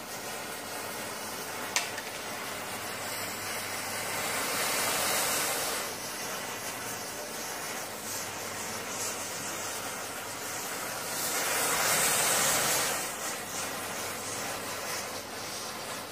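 Rows of upright safety matches catching fire one after another, a steady hissing fizz that swells twice as the flame front spreads. A single sharp click comes near the start.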